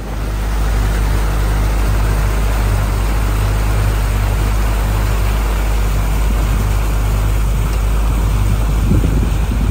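Motorboat engine running steadily underway, a constant low rumble with rushing wind and water noise over it, coming in suddenly at the start.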